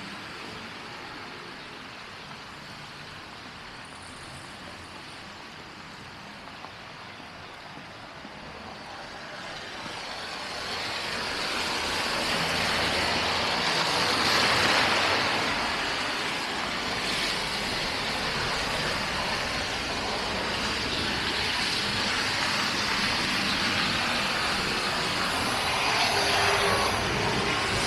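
City street traffic: vehicles passing with a steady hiss of tyres, swelling louder about ten seconds in and staying loud after.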